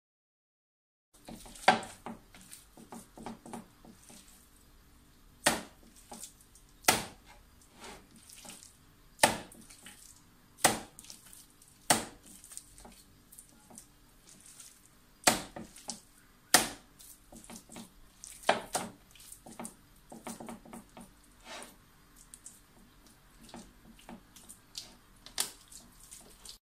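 Hands mixing and squeezing wet minced chicken with chopped prunes on a plate: soft squelching with sharp wet slaps every second or two, about ten of them loud.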